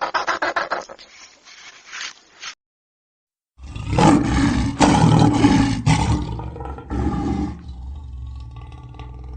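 A large animal giving loud, roaring calls over a low rumble, starting after a brief silence and tapering off near the end. Just before the silence there is a quick run of short, rapidly repeated sounds.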